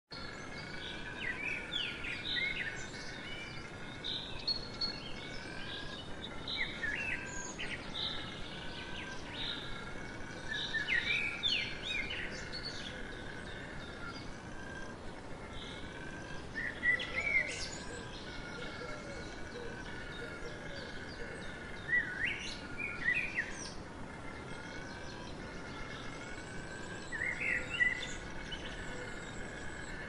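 Wild birds calling in a forest: short clusters of chirps and whistles come every few seconds over a continuous wavering high-pitched background chorus.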